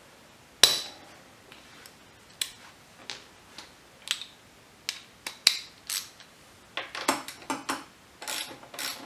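Irregular sharp metallic clicks and clinks of a hand tool on metal as the front axle pinch bolt on a motorcycle fork leg is loosened by hand, the loudest clink about half a second in and a quicker run of clicks near the end.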